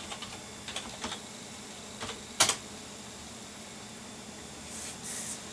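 Computer keyboard being typed on: a few separate key clacks over the first two and a half seconds, the last and loudest about two and a half seconds in. A brief soft hiss near the end.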